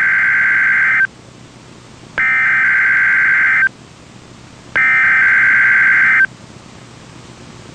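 NOAA Weather Radio's SAME (Specific Area Message Encoding) digital header sounding three times as loud, harsh data bursts, each about a second and a half long with about a second between them; the first is already under way and stops about a second in. It opens the Required Weekly Test of the alert system.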